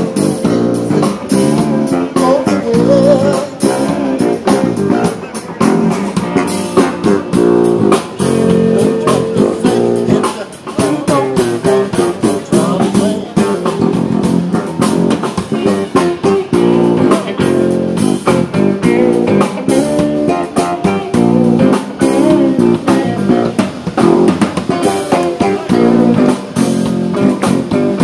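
Electric guitar played live through an amp, a funk groove of rhythmic picked lines and chords, with a drum kit keeping the beat.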